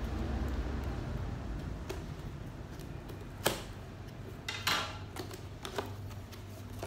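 Scissors cutting the sticky tape sealing a small cardboard box: a few sharp snips and a short scraping rasp about halfway through, then the cardboard flap being lifted open near the end.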